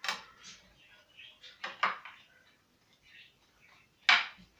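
Metal spatula clinking and scraping against a glass baking dish as layered pasta is pressed down, a few short sharp knocks with the loudest about four seconds in.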